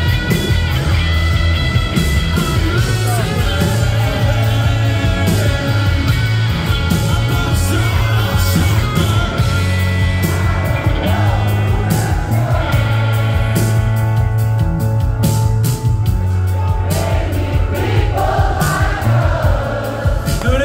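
Live rock band playing loud through a concert PA: electric guitars, bass and drums, with a heavy bass and steady drum hits. Recorded from within the audience, so the sound is dense and boomy.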